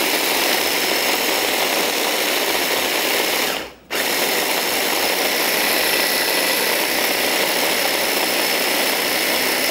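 Electric food chopper running, grinding roasted peanuts, garlic, red chillies and jaggery into a peanut-sauce paste. It cuts out briefly just under four seconds in, then starts again.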